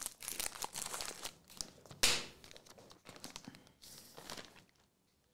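Foil trading-card pack wrapper being torn open and crinkled by hand, a run of crackles with the loudest about two seconds in, tapering off near the end.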